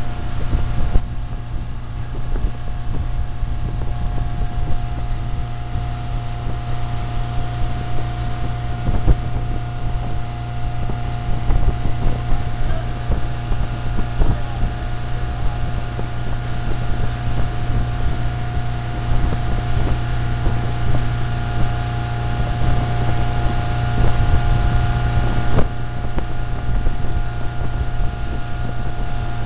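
Motorboat engine running steadily at towing speed, a continuous drone, with wind buffeting the microphone.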